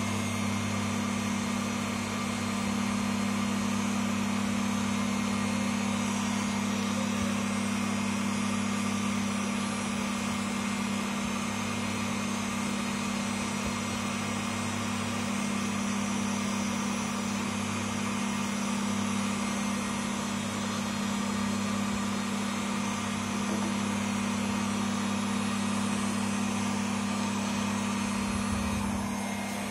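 An electric motor running steadily, a low even hum with an airy hiss over it, like a grooming blower or fan.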